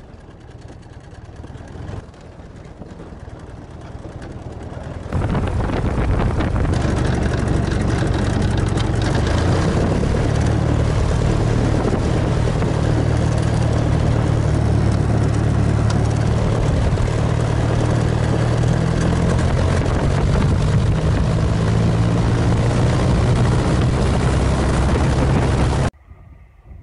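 De Havilland DH-83 Fox Moth's Gipsy Major four-cylinder engine heard from the open cockpit. It runs at low power, then is opened up about five seconds in and runs steadily at full power for the takeoff roll on grass, with propeller and wind noise. The sound cuts off abruptly near the end.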